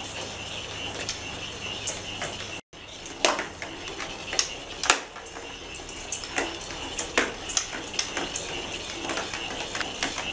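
Battery-powered rolling ball cat toy running: a steady whir from the small motor spinning a weight inside the ball, with irregular clicks and knocks as the hard ball rattles and bumps across a tiled floor. The sound drops out for a moment nearly three seconds in.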